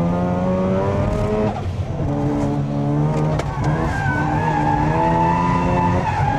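Drift car on a circuit, its engine held at steady high revs, dipping briefly about a second and a half in as the throttle comes off, then back on the power with tyres squealing through the slide.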